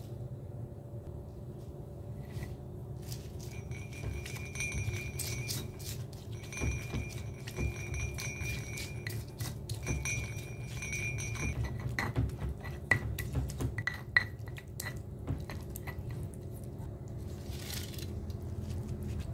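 Stone pestle grinding and pounding fried chillies and shallots into sambal in a stone mortar: repeated scraping strokes and sharp knocks of stone on stone, with a run of clinks about two-thirds of the way through. Near the end fried tempeh is pressed into the sambal.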